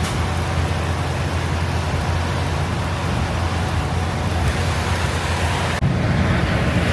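Steady engine drone and road noise inside the cab of a Peterbilt 389 semi truck driving. The sound drops out for an instant about six seconds in and comes back with a brighter hiss.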